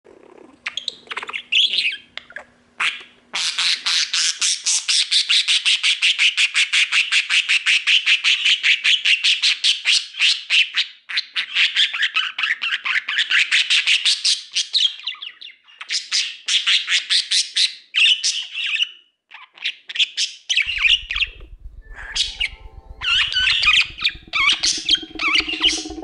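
Budgerigar chattering and squawking: a long run of fast, rapidly repeated chirps, then shorter broken bursts. Music with a steady beat comes in underneath about 21 seconds in.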